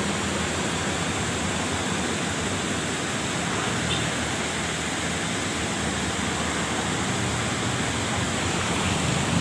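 Water of a small stream rushing steadily, an even hiss with no breaks.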